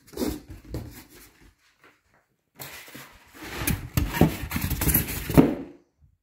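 Cardboard box and polystyrene foam packing inserts being handled, rustling and scraping, with a short quiet gap about two seconds in and the loudest handling in the second half.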